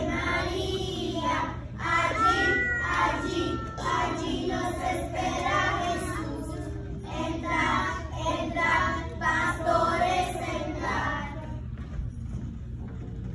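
A group of young children singing together on stage, the singing tailing off shortly before the end.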